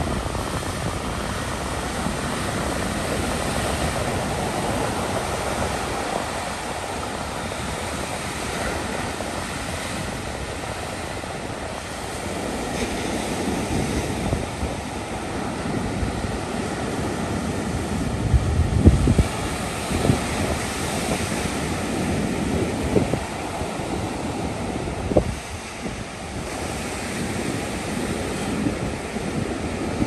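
Ocean surf breaking and washing up a sandy beach in a steady wash. A few gusts of wind hit the microphone, the loudest about two-thirds of the way through.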